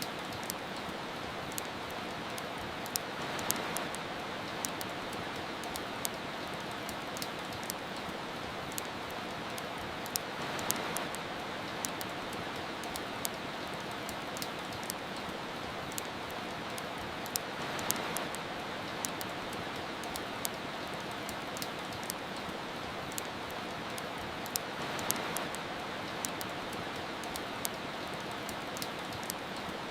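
Steady soft rain mixed with a wood fire crackling and popping in irregular sharp clicks. The rain swells gently about every seven seconds.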